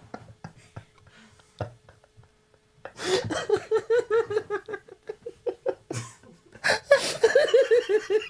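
Men laughing hard after a short lull: a run of rhythmic laughter starts about three seconds in, breaks off briefly, and a second burst follows.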